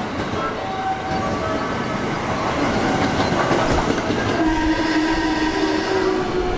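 A JR West train's music horn plays a short melody of quick notes, then a long, steady air-horn blast starts about four seconds in, which the uploader takes for an angry warning. The train's running rumble and wheel clatter go on underneath.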